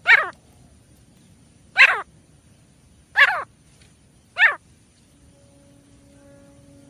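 Francolin (teetar) calling: four loud, short calls about a second and a half apart, each a quick falling run of notes, then a pause of about two seconds near the end. A faint steady hum underneath.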